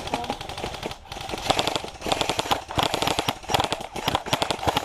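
Airsoft rifles firing rapid full-auto bursts, a fast rattle of shots with brief pauses between bursts.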